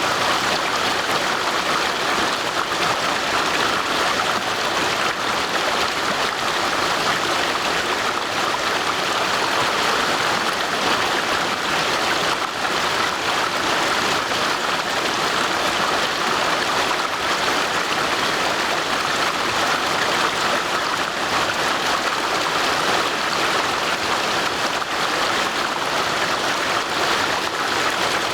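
Stream water rushing steadily over stones, an even unbroken noise.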